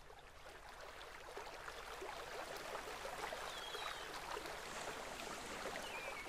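Rushing water, fading in gradually, with a few faint high chirps.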